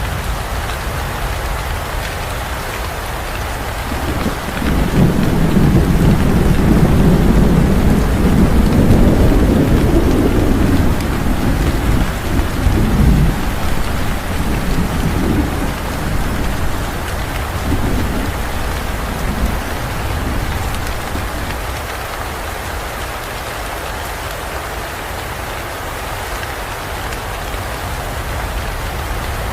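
Steady heavy rain with a long roll of thunder that swells about four seconds in, rumbles for roughly ten seconds and dies away, leaving the rain alone.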